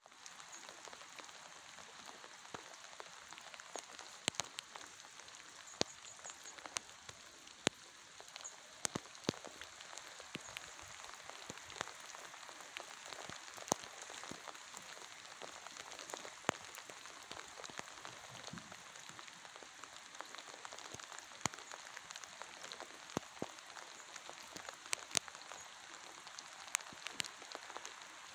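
Rain falling on a waterlogged grassy yard: a steady hiss with scattered sharp taps of single drops landing close by.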